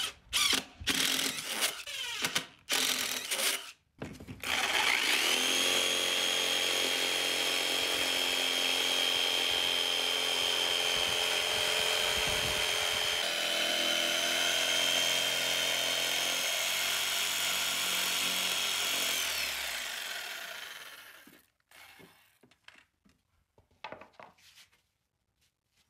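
Cordless drill boring a starter hole through an MDF sheet in a few short bursts, then a corded jigsaw cutting through the MDF, running steadily with a high whine for about fifteen seconds before winding down. A few light knocks follow.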